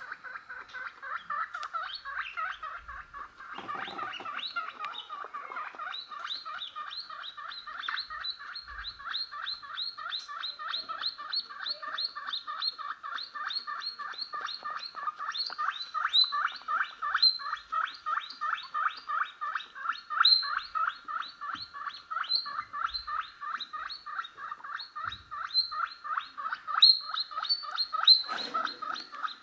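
Baby guinea pig wheeking over and over, short high calls repeating about three times a second, heard through a laptop's speaker. A few calls in the second half are louder.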